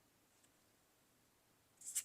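Near silence, then near the end a brief soft swish of a trading card sliding against the stack as the next card is flipped.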